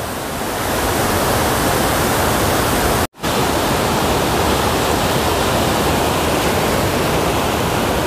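Waterfall rushing over stepped rock ledges: a loud, steady wash of water noise. It cuts out for an instant about three seconds in.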